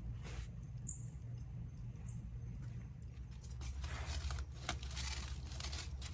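Campfire crackling: scattered pops and snaps, busier in the second half, over a low steady rumble, with a brief high chirp about a second in.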